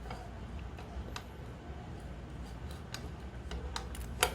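Scattered sharp metal clicks and taps of an alarm disc lock being worked onto a motorcycle brake disc, with a louder cluster of clicks near the end.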